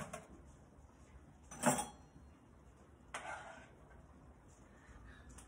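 Kitchen handling noises while food is dished onto a plate: a single knock about a second and a half in, then a short scrape around three seconds in, otherwise quiet.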